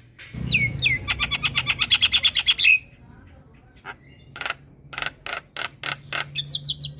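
Javan myna (jalak kebo) singing. It gives two quick downward whistles, then a fast rattling run of about a dozen notes a second, a short pause, and then a series of harsh, raspy strokes with a quick high twitter near the end.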